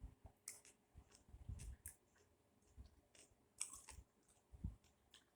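A person chewing food close to the microphone, quiet, with irregular wet mouth clicks and soft low thumps.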